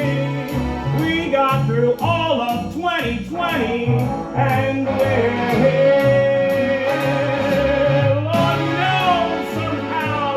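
Music: a singer holding long, wavering notes over a band accompaniment with a steady beat.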